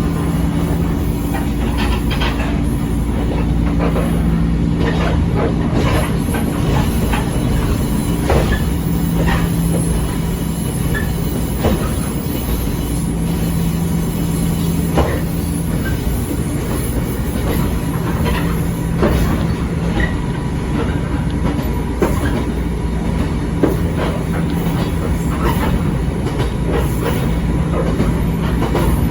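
Echizen Railway 5001-series electric railcar running between stations, heard inside the car: a steady rumble and hum with scattered clicks of the wheels over rail joints.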